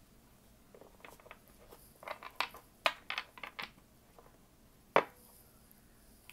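A deck of tarot cards handled and squared in the hands: a quick run of light clicks and taps of card edges from about one second in to nearly four seconds, then one sharper tap about five seconds in.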